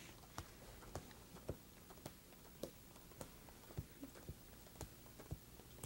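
Playing cards dealt one at a time onto a felt-covered table: faint soft taps, about two a second.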